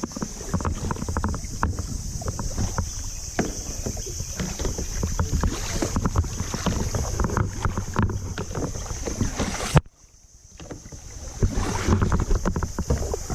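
Kayak paddling: irregular paddle splashes and water sloshing, with wind buffeting the microphone. About ten seconds in, the sound cuts out suddenly and then builds back up.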